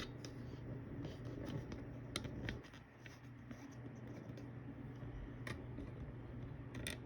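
Scattered light clicks and scratches of small objects being handled on a work surface, over a steady low hum.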